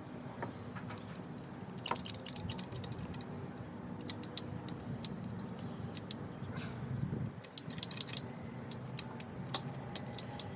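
Quick clusters of light, sharp clicks and ticks from hand tools and fittings being handled while the catch can's breather hose is taken off and trimmed.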